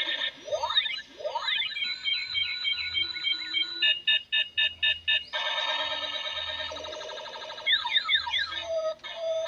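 Electronic sound effects from a battery-powered toy blaster: sweeping laser zaps that glide in pitch, warbling alarm-like tones, and a quick run of about six beeps in the middle.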